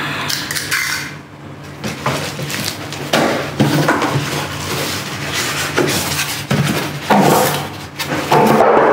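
Unpacking noise: a cardboard carton and its plastic wrap rustling and scraping, with irregular knocks and clatters, as a white foam packing insert is pulled out of the box.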